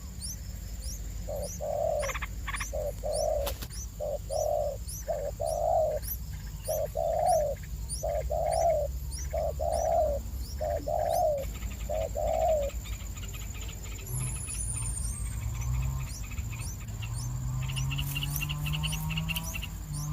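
A dove cooing in a steady series of about a dozen low notes over the first twelve seconds, with thin high chirps repeating throughout.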